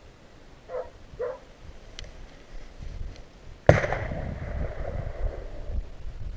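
A single gunshot about three and a half seconds in, ringing out in a long fading echo. Before it, a hound yelps twice.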